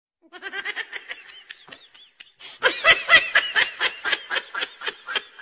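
A person laughing in rapid, high-pitched bursts, about six a second, soft at first and much louder from about halfway through.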